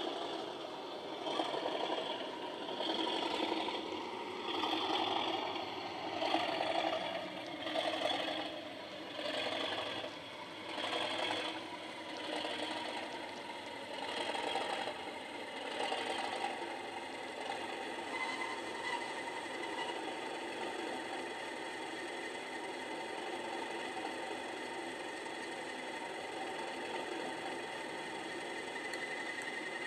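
OO gauge Class 37 model diesel locomotive's factory-fitted sound decoder playing its English Electric diesel engine sound through a small onboard speaker as the locomotive runs in with its train. The sound swells and fades about every second and a half for roughly the first half, then evens out, with a thin steady high tone joining in later.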